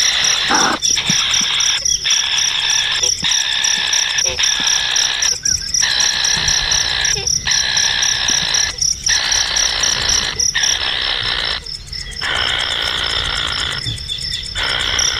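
Loud chorus of insects: a dense buzzing drone that breaks off briefly every second or two, with a fast pulsing trill above it.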